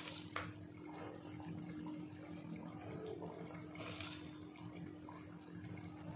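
Chicken curry cooking in a pan on a stove: a faint, steady sizzle and bubble under a low steady hum, with a couple of light utensil clicks at the start as the spice mix is added.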